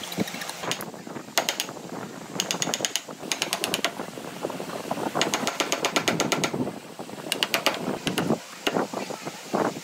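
A reciprocating power tool driving a flat blade into a hardwood post, chopping out a notch in repeated short bursts of rapid clattering strikes.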